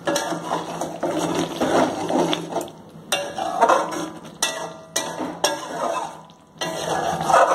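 A spatula stirring thick yogurt gravy around a metal kadai, scraping against the pan in uneven strokes with a couple of short pauses; the stirring keeps the dahi mirch from sticking as it thickens on full flame.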